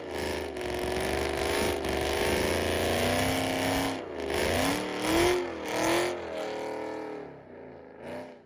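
Ford Mustang GT's 4.6 L three-valve V8, breathing through long-tube headers and an off-road H-pipe, running hard with its pitch climbing and dropping several times as it revs. It cuts off abruptly near the end.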